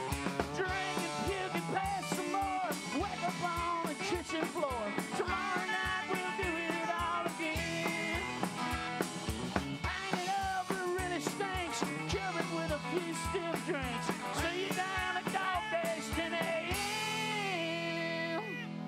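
Live rock band playing an instrumental break: electric guitars, upright bass and drums, with a lead line of bending notes. The drum hits stop near the end, leaving held, sliding guitar notes over the bass.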